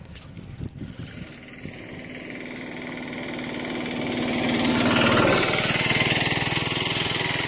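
A motorbike's engine running with a fast steady pulse, growing louder as it draws near and loudest about five seconds in.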